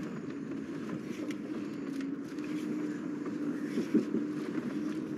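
Car running at low speed, heard from inside the cabin: a steady low engine and road hum, with a few light knocks and clicks, the sharpest about four seconds in.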